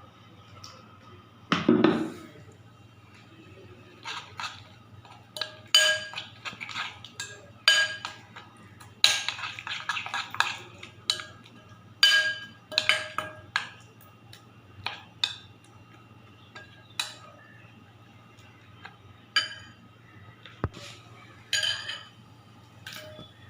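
A spoon clinking irregularly against a bowl as a spiced gram-flour (besan) batter is stirred with water. The strikes come in uneven clusters, each ringing briefly.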